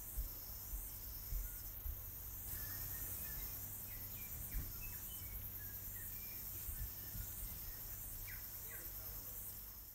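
Outdoor insect chorus, a steady high-pitched chirring with a regular pulse, with faint scattered bird chirps and a few low bumps; it fades out at the very end.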